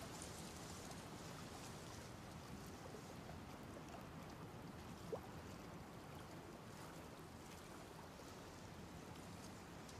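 Faint steady outdoor background hiss, with one brief rising chirp about halfway through.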